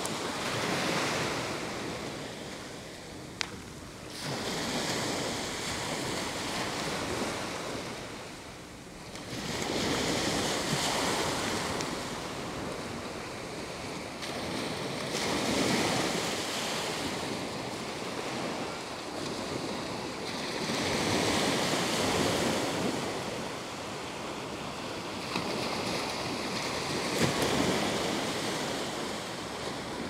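Small Gulf of Mexico waves breaking and washing up the sand, the surf swelling and easing about every five seconds.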